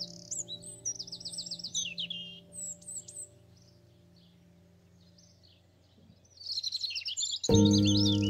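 Songbirds chirping and trilling, with rapid runs of repeated notes, over the faint held tones of a piece of music fading out. After a brief lull the birds start again, and near the end a new piece of music begins with a loud sustained low chord.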